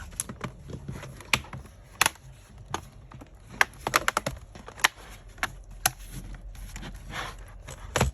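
Irregular sharp clicks and knocks of a laptop's bottom cover being fitted and handled by hand on a workbench, about fifteen to twenty over several seconds.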